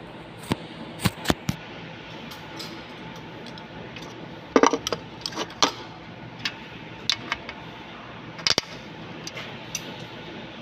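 Handling noise from a phone being moved and set down: irregular sharp clicks and knocks, a loud cluster about halfway through and another near the end, over steady background noise.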